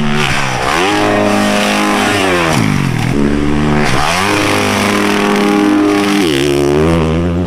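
Motocross dirt bike engine revving hard under load, with the throttle chopped and reopened: the pitch climbs, drops and climbs again three times.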